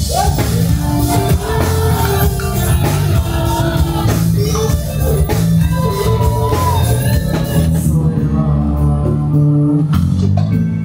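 Loud music with a heavy bass line and a singing voice over it. The high end drops away about eight seconds in, leaving mostly bass and voice near the end.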